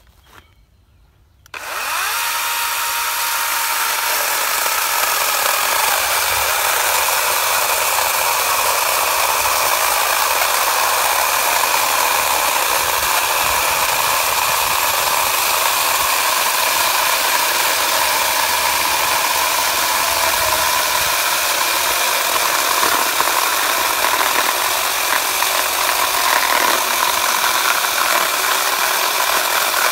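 Sun Joe iON16CS-CT 40-volt cordless brushless electric chainsaw starting suddenly about a second and a half in, then cutting steadily through a large, dry log. The motor runs without choking or bogging down all through the cut.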